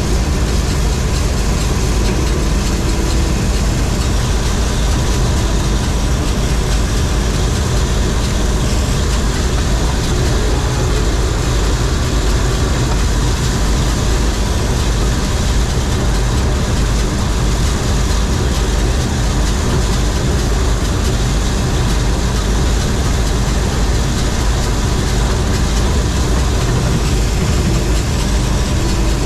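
John Deere 4400 combine running steadily while harvesting corn: a constant engine drone together with the rattle and whir of the header and threshing machinery.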